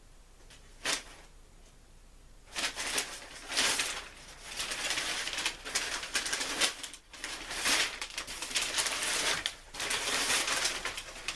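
Packing paper being pulled out of a box and crumpled, a loud irregular rustling and crinkling that starts about two and a half seconds in and comes in surges, after a single click about a second in.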